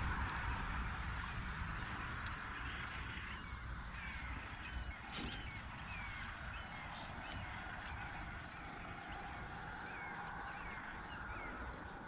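Outdoor shoreline ambience: a steady high-pitched insect drone with birds chirping over it.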